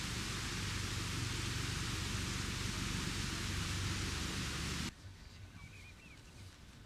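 Steady loud rushing hiss with a low rumble. It cuts off abruptly about five seconds in, leaving much quieter outdoor ambience with a few faint high chirps.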